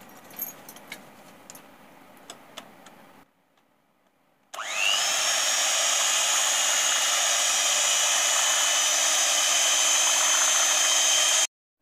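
Electric hand mixer switching on with a quick rising whine that settles into a steady high-pitched motor run, its beaters whipping a thin milk, cream and mango mixture. It stops abruptly near the end; before it starts there are only a few faint clicks.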